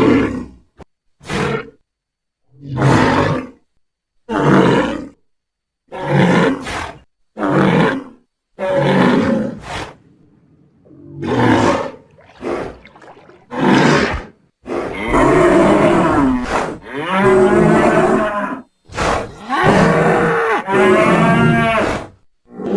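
Designed Ankylosaurus dinosaur calls, assembled from hippopotamus, walrus, bull and hadrosaur sound effects. About ten short roars and grunts come first, each about a second long with silent gaps between them. After the midpoint they give way to longer, almost unbroken calls whose pitch rises and falls.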